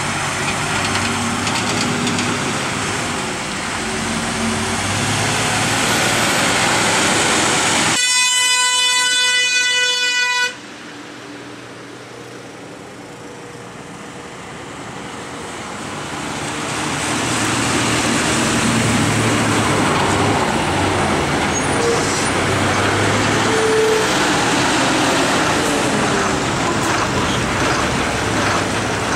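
Heavy lorry engines labouring round a hairpin bend. About eight seconds in, a vehicle horn sounds one long steady blast of about two and a half seconds. The sound then drops off suddenly, and engine noise builds again as another heavy vehicle comes up through the bend.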